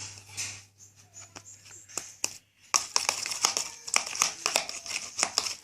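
Freshly activated slime being worked in a container, squishing with a dense run of wet clicks and crackles that starts about three seconds in after a few scattered clicks.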